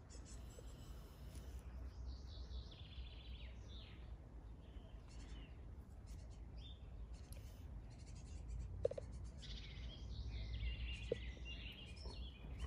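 Small birds chirping and twittering in the background over a low steady rumble, with two brief short blips in the second half.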